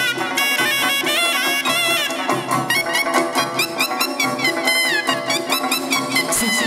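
Live chầu văn ritual music: an ornamented melody with sliding notes over a quick, clicking percussion beat, with no singing.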